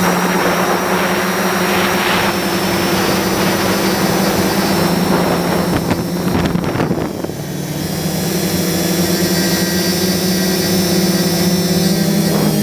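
Turnigy SK450 quadcopter's electric motors and propellers whining steadily in flight, heard from the camera mounted on it. The sound dips briefly and its pitch shifts a little past halfway.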